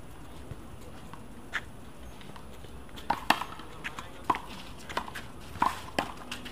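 One-wall handball being played: sharp smacks of the small rubber ball off gloved hands, the wall and the concrete court. One smack comes about a second and a half in, then a quick string of them, roughly two a second, from about halfway through as a rally gets going.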